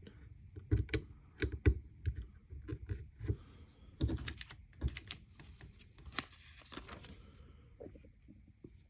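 Plastic LEGO bricks clicking and clacking as pieces are handled and pressed together, in irregular bursts of small sharp clicks.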